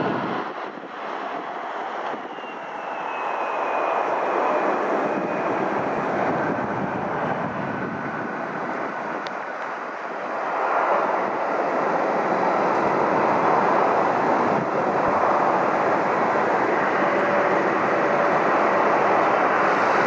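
Jet engine noise from a CRJ-700 regional jet landing: loud as it touches down, easing off briefly, then swelling again a few seconds later as it rolls out along the runway. From about halfway the jet noise stays loud and steady, with another airliner taxiing nearby.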